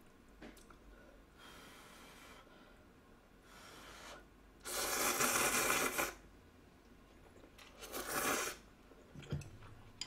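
A person slurping instant ramen noodles. One long, loud slurp comes about halfway through and a shorter slurp follows a couple of seconds later.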